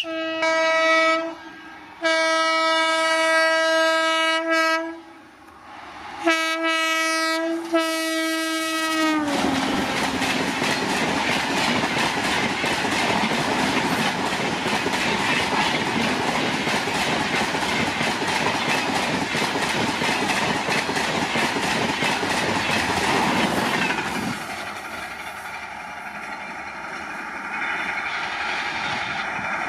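A WAP-7 electric locomotive's horn sounds in several long blasts as an express train approaches at high speed, its pitch dropping as the locomotive passes. The loud rush and clatter of the passenger coaches going by close at speed follows. After about 24 s this gives way to a quieter, steady sound of a train running away.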